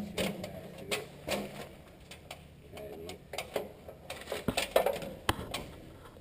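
Footsteps and knocks on a metal grating walkway: scattered, uneven clicks and clanks, coming thickest about four to five seconds in.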